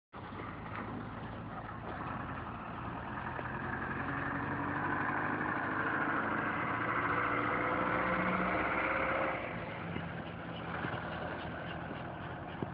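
A vehicle engine running, growing steadily louder with a slight rise in pitch, then dropping off suddenly about nine seconds in.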